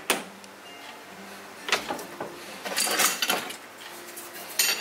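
Steel tool holder carrying a parting tool clicking and scraping as it is fitted onto a lathe's quick-change tool post: a sharp click at the start, another just under two seconds in, a cluster of rattling knocks around three seconds and a click near the end, over a faint steady hum.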